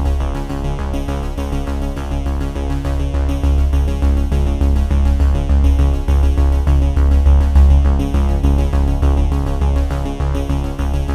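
Background music: sustained electronic tones over a steady pulsing bass beat.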